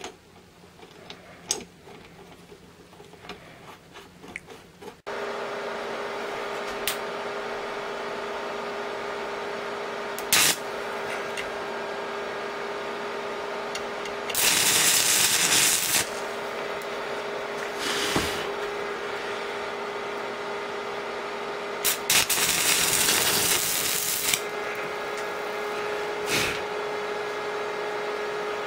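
An electric arc welder welding the metal plate of a Citroën DS rear engine mount: a steady hum throughout, broken by short bursts of arc noise and two longer bursts of about two seconds each. Before the hum starts there are a few light metal clicks of a nut being turned on a stud.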